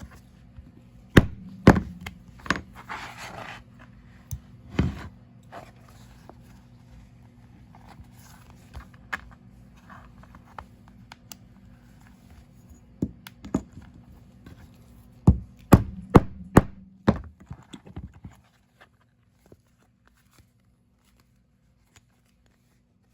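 Hammer blows on a hand grommet-setting tool. Two sharp strikes come early and one a few seconds later, with light handling noise between them, then a quick run of about six loud blows before it stops about 18 seconds in.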